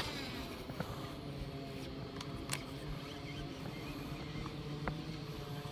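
A steady low motor hum, like a boat engine running, with a few faint clicks over it.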